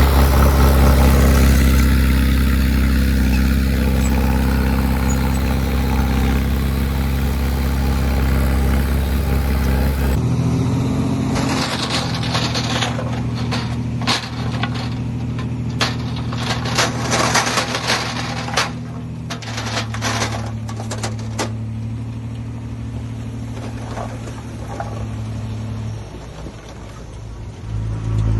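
Heavy diesel engines of earthmoving machinery running steadily. About ten seconds in the sound cuts abruptly to another engine, with a run of clanks and rattles over the next ten seconds or so, and the engine note changes and drops near the end.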